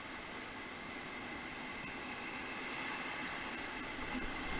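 Whitewater rushing steadily around a raft in a river rapid, with a slight swell toward the end.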